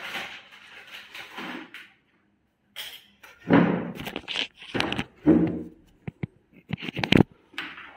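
Clip-on lapel microphone being handled: faint rustling, then from about halfway a series of loud knocks, rubbing thumps and clicks as it is picked up and moved.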